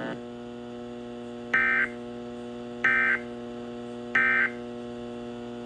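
Emergency Alert System end-of-message code: three identical short bursts of warbling digital data tones, about 1.3 seconds apart, over a steady electrical hum.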